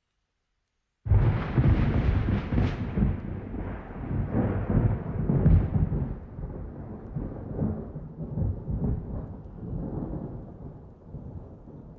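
Thunder: after about a second of silence, a loud clap breaks in suddenly, crackling early on, then rolls on as a long low rumble that slowly fades.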